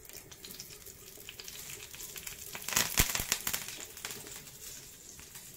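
Curry leaves spluttering and crackling in hot coconut oil in a frying pan. A burst of louder pops comes about three seconds in.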